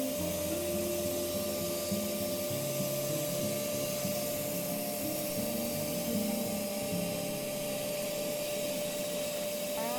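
Bee vacuum running steadily with a constant whine, sucking bees out of a hive.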